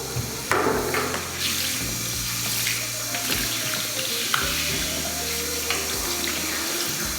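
Water running steadily into a bathtub, a continuous splashing hiss, with a knock about half a second in.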